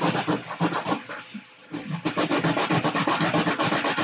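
A 3D-printed model part rubbed back and forth on a sheet of sandpaper in rapid rasping strokes, flattening its joint face so it sits level. The strokes pause briefly about a second in, then carry on.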